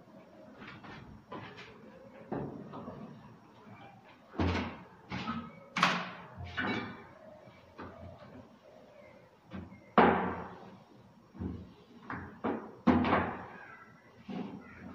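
Irregular knocks and thuds as a large framed mesh panel is handled and stood on a hard floor, with a few sharper bangs, the loudest about two-thirds of the way in.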